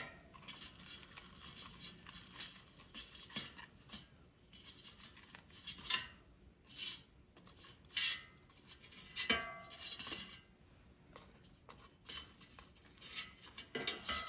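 A kitchen utensil clicking and clinking against an air fryer basket as breaded chicken strips are turned over in it. The clicks are scattered and irregular, and a few ring briefly.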